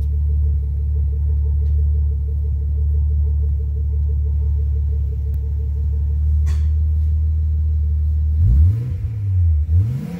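Nissan Skyline R32 engine idling through its HKS Hi-Power exhaust, a steady low rumble, then blipped twice near the end, the pitch rising and falling each time. The exhaust is really quiet, barely louder than stock.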